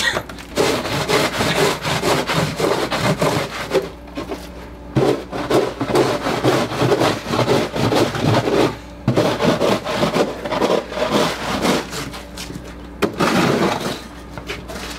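Plastic snow shovel scraping and chopping at ice and slush on pavement, in repeated rough strokes with a couple of short pauses.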